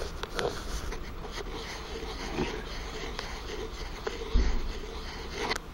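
Steady hiss of rain with distant construction-site noise, and a dull low bump of camera handling about four seconds in.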